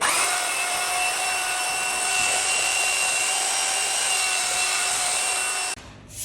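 Electric power tool motor running steadily at full speed with a high whine, then switching off suddenly near the end.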